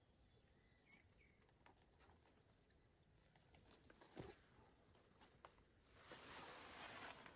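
Near silence, broken by a few faint clicks and a single knock about four seconds in, then a soft rustling hiss that swells near the end.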